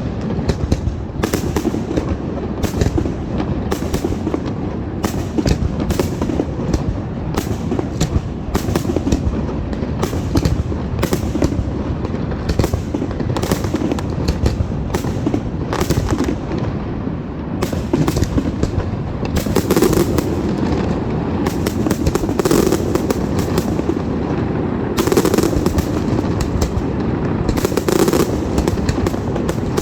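Fireworks going off in rapid succession: a continuous barrage of overlapping bangs and crackles over a deep rumble, growing denser and louder in the last ten seconds.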